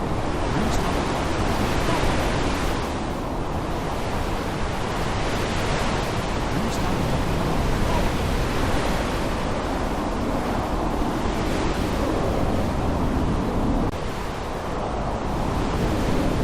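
Heavy rainstorm with wind: a dense, continuous rushing hiss that swells and eases every few seconds.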